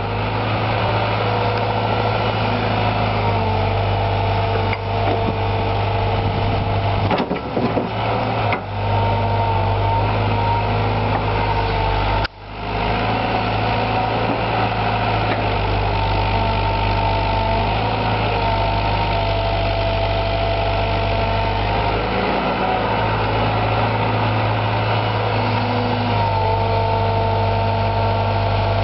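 JCB JS130 tracked excavator's diesel engine running steadily under working load while the hydraulics drive the boom and bucket, with a whine that steps up and down in pitch as the arm moves. A few knocks come around seven to eight seconds in.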